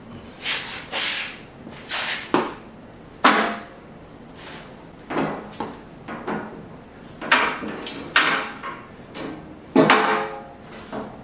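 Heavy cast-iron lathe parts, a tailstock and steel bars, being handled and set on a shop cart: about a dozen separate metal clanks, knocks and scrapes. The loudest, about three seconds in and near the end, ring briefly.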